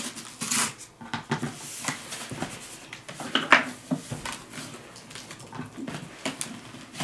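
A utility knife scraping and cutting through a cardboard box sleeve, with a sharp clack about three and a half seconds in, then cardboard rubbing and sliding as the box is worked loose.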